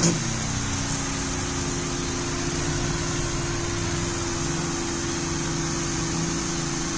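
Battery knapsack sprayer's electric pump running steadily, a constant hum under the hiss of fine spray from its brass nozzle.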